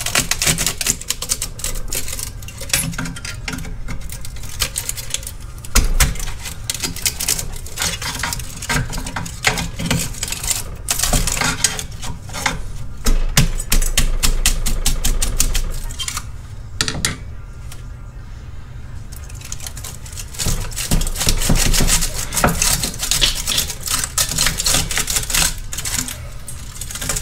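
A hand tool prying and scraping the crumbling honeycomb catalyst core out of a cut-open Harley-Davidson exhaust head pipe. It makes dense, irregular clicking, crunching and metal scraping, with a few louder knocks.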